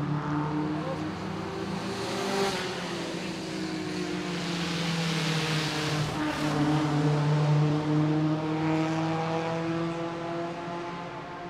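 Small vintage sports-car engines under two litres racing past at speed, several engine notes overlapping and gently rising and falling in pitch; the sound fades near the end.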